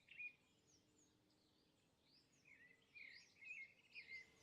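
Faint birdsong: short, high chirps, scattered and few at first, coming more often from about halfway through.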